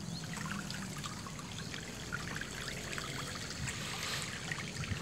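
Muddy floodwater running across a dirt lane: a steady wash of flowing water with small scattered splashes.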